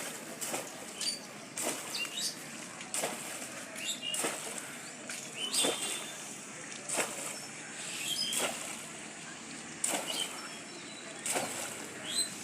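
Water splashing in a run of sharp strokes, roughly one a second.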